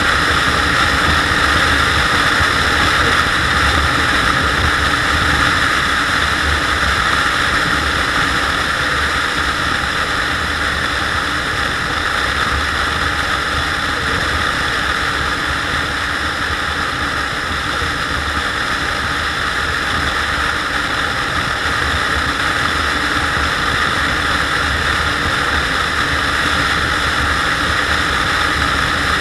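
SYM Joymax GTS 250 Evo scooter at cruising speed: a steady rush of wind and road noise over the low drone of its single-cylinder engine.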